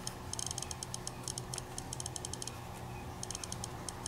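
iPod Photo (fourth-generation iPod) click wheel clicker played through the iPod's small built-in speaker as a thumb scrolls the wheel: rapid runs of short, high ticks, one per menu step, with a brief pause about two and a half seconds in.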